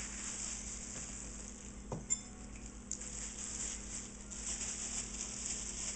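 Thin plastic bags crinkling and rustling as they are handled, with one sharp knock about two seconds in.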